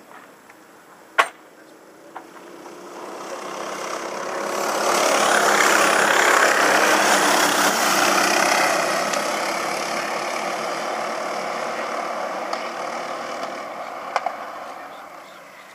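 Engines of a bunch of racing go-karts approaching, passing close by and moving away down the track: the sound swells over a few seconds to a peak, then slowly fades. A single sharp click a little over a second in.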